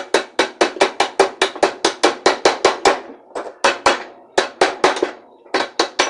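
Rapid hammer blows on a washing machine's tub coupler, the square drive block seated on the transmission shaft, about five a second with two short pauses, each strike ringing briefly. The coupler is being knocked loose from the shaft after a soaking with penetrating oil.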